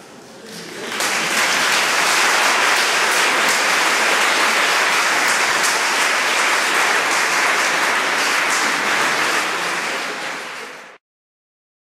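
Audience applause swelling up about a second in and holding as steady clapping, then cutting off suddenly near the end.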